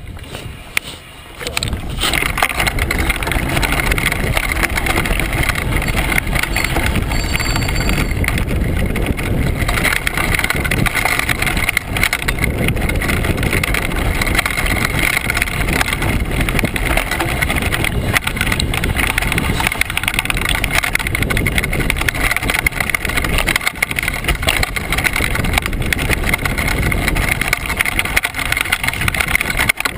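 Downhill mountain bike rattling and rumbling over a rocky trail, with wind buffeting the camera's microphone. It starts quietly and becomes a loud, continuous rumble from about two seconds in as the bike gets going.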